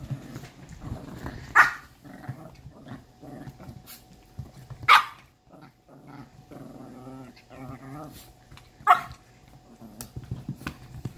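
A dog growling steadily, broken by three loud, sharp barks about three to four seconds apart.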